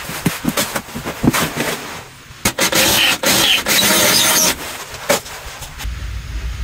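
Cordless power drill running in one burst of about two seconds, near the middle, with clicks and knocks from handling the tool and parts before and after.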